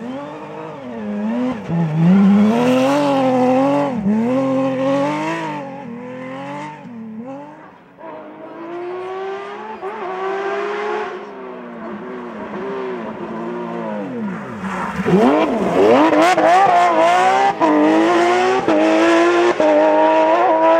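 Porsche 911 GT3 rally cars' flat-six engines revving hard as they pass, the pitch climbing and dropping back again and again with the gear changes. There are several passes, and the loudest comes in the last third.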